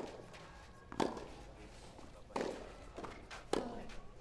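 Tennis rally: a ball struck back and forth by rackets, four sharp hits a little over a second apart.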